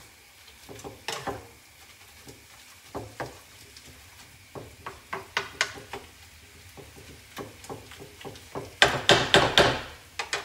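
Wooden spatula scraping and knocking against a frying pan while stirring minced pork, in scattered irregular strokes, with a louder flurry of knocks near the end.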